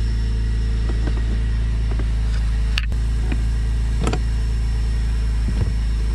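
A steady low engine hum runs throughout. Over it come a few short metallic clicks and knocks from a wrench loosening a nut on a bolt, the sharpest near three seconds and four seconds in, with another near the end.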